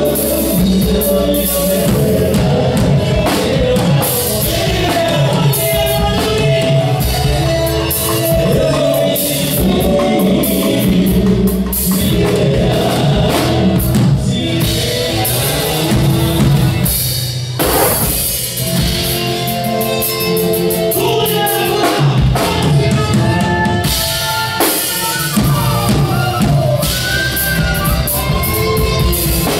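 Live Andean folk band music: men singing together over acoustic guitars and charango, with a drum kit keeping the beat.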